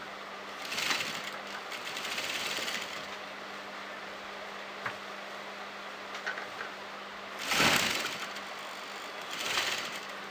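Sewing machine stitching a seam in several short runs with pauses between, the loudest run about three-quarters of the way through.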